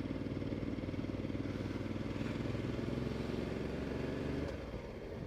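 Ducati Multistrada 1260 S's V-twin engine running steadily at low speed, getting a little quieter about four and a half seconds in.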